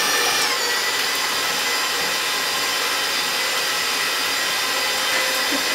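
Electric stand mixer running at medium speed, its motor whining steadily as the flat beater whips four eggs. The whine drops slightly in pitch about half a second in, then holds steady.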